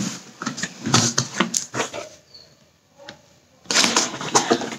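Corrugated cardboard shipping box being handled and its flaps opened: scattered scrapes and rustles, a short lull about two seconds in, then a louder burst of cardboard rubbing and flapping near the end.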